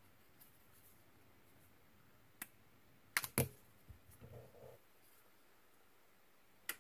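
Plastic snap-fit clips on a mini WiFi spy camera's case clicking as its back cover is pried off. A sharp click comes first, then a quick pair of louder snaps about halfway through, brief handling noise, and another click near the end.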